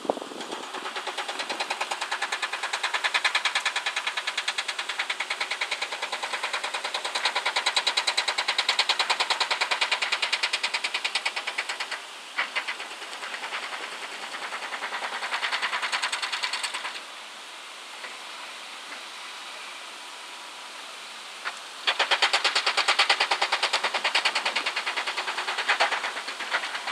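Excavators working on a rocky slope: a fast, even, rhythmic mechanical clatter. It drops to a quieter steady sound for about five seconds in the second half, then resumes.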